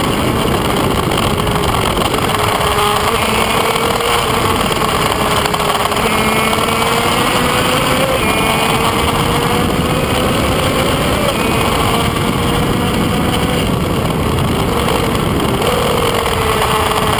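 Onboard sound of a Kreidler Van Veen 50 cc two-stroke racing motorcycle at speed, its high engine note largely buried under heavy wind rush on the microphone. The engine pitch creeps up and steps with gear changes a few times, about 8, 11 and 15 seconds in.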